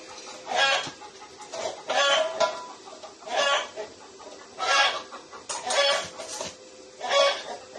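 Chickens clucking, a short call about every second, over a steady faint hum.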